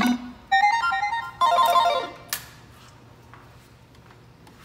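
Electronic beeping melodies from a Japanese Thunder pachislot slot machine as its reels stop: two short tunes of stepped tones, one after the other, then a single sharp click about two seconds in.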